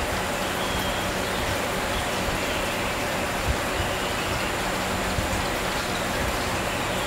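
Steady rushing and splashing of water: an even hiss that holds at a constant level throughout.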